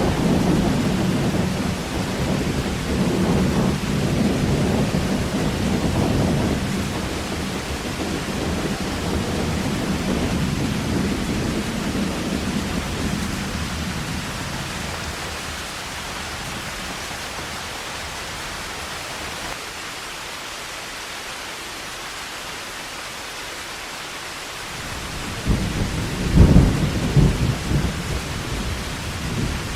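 Heavy rain falling in a steady hiss, with thunder rumbling through the first dozen seconds and dying away. A second, louder clap of thunder rolls in near the end.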